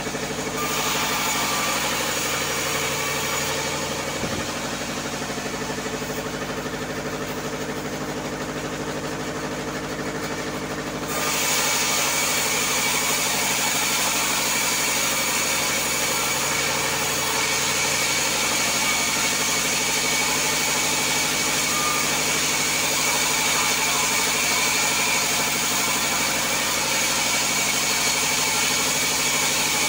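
Band sawmill running steadily with a hum, its blade cutting through timber with a hiss and high whine that get louder about eleven seconds in and carry on steadily.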